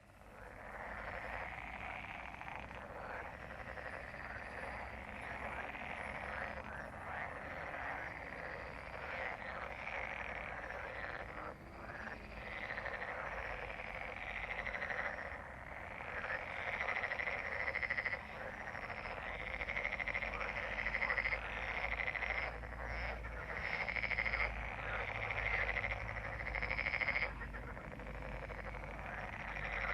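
A dense breeding chorus of frogs, many croaking calls overlapping without a break; it fades in from silence at the start.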